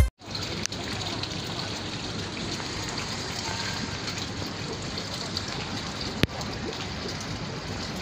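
Steady trickling and splashing of water in a turtle and koi pond, with one sharp click about six seconds in.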